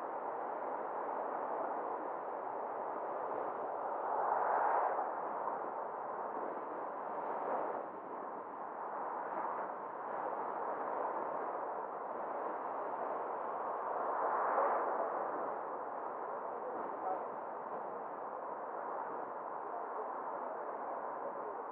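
Steady road and wind noise of a car driving along a street, swelling briefly about four seconds in and again about two-thirds of the way through.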